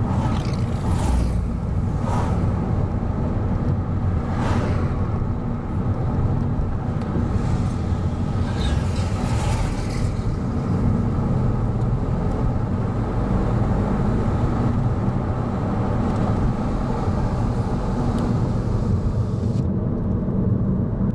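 Steady road and engine rumble heard inside a moving car. Several oncoming cars whoosh past in the first ten seconds.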